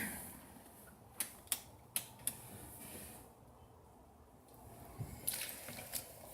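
Faint small mechanical clicks: four single clicks about a second apart early on, then a quick cluster of clicks near the end.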